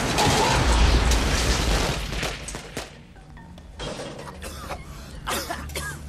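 Microwave oven explosion: a loud blast with shattering and flying debris that dies away over the first two seconds, leaving scattered crackles and clatters, with music underneath.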